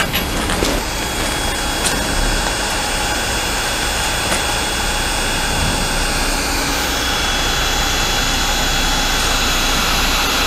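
Heat gun blowing steadily with a loud, even hiss; a faint high whine joins about six and a half seconds in.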